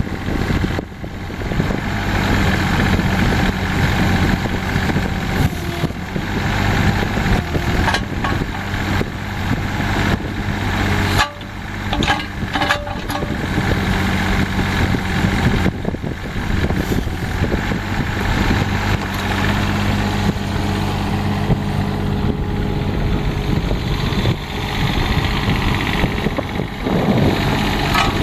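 Diesel engine of a 2002 Schaeff HR12 mini excavator running steadily, with a few clicks about halfway through.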